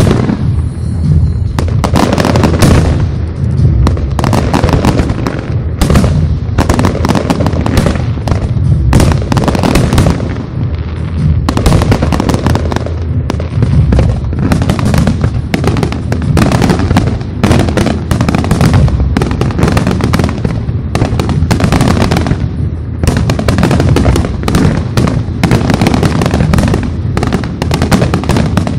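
Aerial firework shells bursting in quick succession, a dense barrage of booms and crackling stars with hardly a pause. It eases briefly about eleven seconds in and again past twenty seconds.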